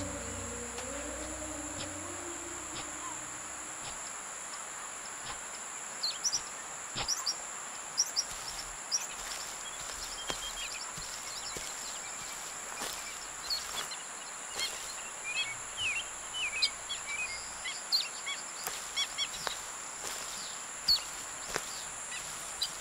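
Forest ambience: a steady high-pitched insect drone over an even hiss, with scattered bird chirps joining about six seconds in and coming more often toward the end.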